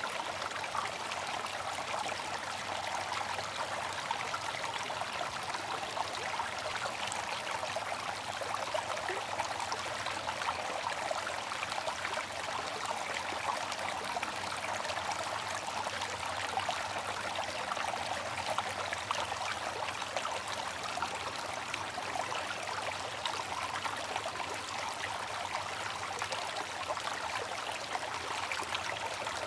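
Bamboo water fountain: water trickling and splashing steadily, a continuous bright hiss with fine droplet patter and little low rumble.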